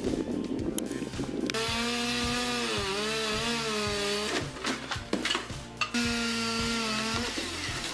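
Chainsaw running at high revs and cutting wood, its engine pitch dipping under load and recovering, in two runs. A backing track with a steady beat runs underneath.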